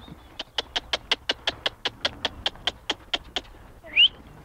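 A fast, even run of sharp clicks, about six a second, ending about three and a half seconds in. It is followed by a short, loud rising whistle-like call.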